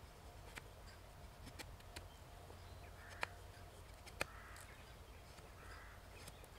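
Faint knife strokes shaving curls off a stick of wood to make a feather stick, heard as a few short rasps with sharp ticks scattered between them.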